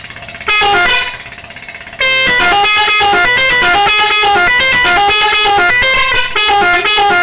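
Multi-tone telolet bus horn playing a melody: a short phrase of stepped notes about half a second in, then a longer run of quickly changing horn notes from about two seconds in, with a couple of brief breaks near the end.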